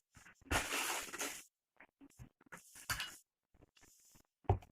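Short scraping and handling noises of a utensil moving through thick, freshly whisked homemade mayonnaise in its container, with a brief knock near the end.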